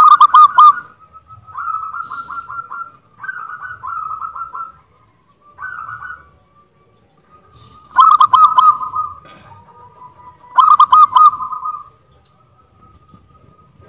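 Zebra dove (perkutut) cooing: a series of short rippling phrases, each a rapid run of staccato coos. The loudest phrases come right at the start and twice in the second half, and the calling stops shortly before the end.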